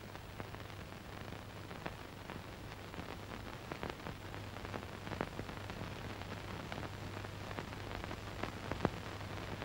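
Old film soundtrack noise: a steady low hum and hiss with scattered crackles and pops.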